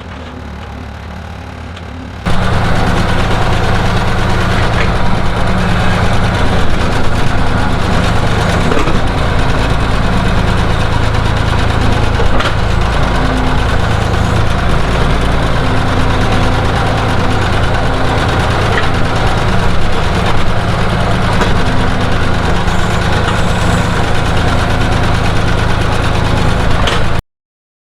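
Skid steer engine running steadily while the skid steer digs with a homemade backhoe attachment. It is quieter at first, becomes suddenly much louder about two seconds in, and cuts off abruptly near the end.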